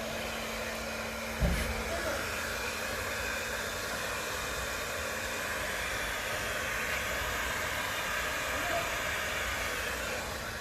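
Blow dryer running steadily, a continuous rushing of air that swells a little midway, with a single soft knock about a second and a half in.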